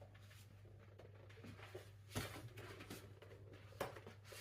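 Faint handling of a cardboard blind box being opened: soft rustles and light knocks, the clearest about two seconds in and another near the end, over a low steady hum.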